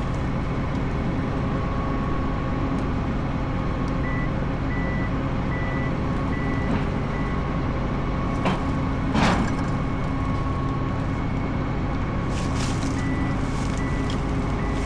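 Farm machine's engine running steadily under a constant hum, with an electronic beeper sounding short beeps about twice a second in two spells, and a single knock around the middle.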